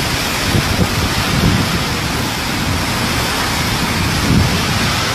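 Hurricane wind and driving rain: a steady rushing hiss, with heavier gusts swelling in the low end now and then.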